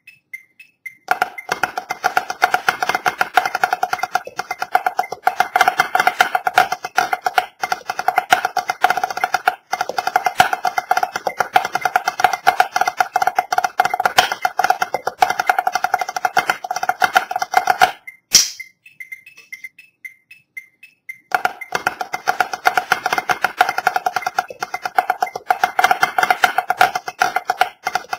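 Drumsticks playing a rapid rudimental drum solo of dense, accented strokes and rolls, starting about a second in. Around eighteen seconds in it breaks off with a sharp click, then resumes after a pause of about three seconds.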